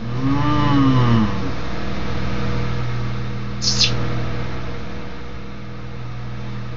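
A steady electrical hum runs throughout. In the first second or so a voice-like tone glides up and back down in pitch, and about three and a half seconds in a brief hiss sounds.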